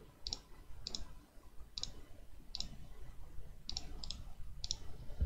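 Computer mouse button clicking, about seven short, sharp clicks spaced roughly half a second to a second apart, while a rectangle is drawn in CAD software.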